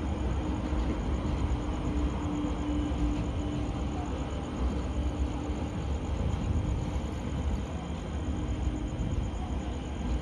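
Taipei Metro C321 electric multiple unit rolling along the track at a distance: a steady low rumble with a faint hum that fades in and out.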